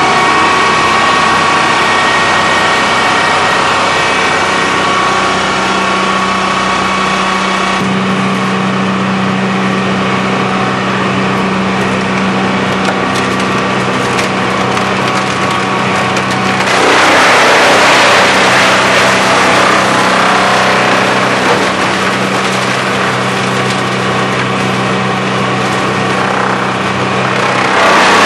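Rotochopper EC-156 horizontal grinder, driven by a 250-hp three-phase electric motor, grinding wooden pallets. A steady machine hum runs under a dense crackle of wood being broken up by the hammers. The hum's low tones change about eight seconds in, and a louder rush of grinding comes around seventeen seconds in and eases a couple of seconds later.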